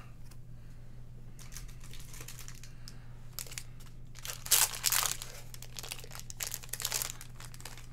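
Crinkling and rustling of plastic wrappers as baseball cards are handled and packs opened, in irregular bursts, loudest about halfway through. A steady low hum runs underneath.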